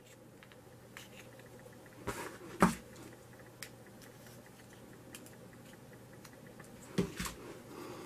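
A few small clicks and knocks of a Zippo lighter's metal case and insert being handled, the loudest about two and a half seconds in and two more near the end, over faint room tone.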